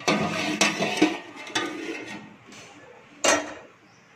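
A large metal pot lid clattering and scraping against the rim of a big metal cooking pot as it is handled and lifted off, with ringing metallic clanks. The clanks are densest in the first second and a half, and there is one sharp clank about three seconds in.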